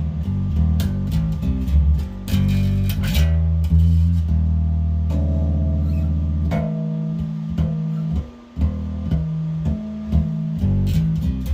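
Glarry jazz-style electric bass, both single-coil pickups on and the tone knob fully open, played through a small modelling guitar amp: a run of plucked bass notes and short riffs, some notes held for a second or more.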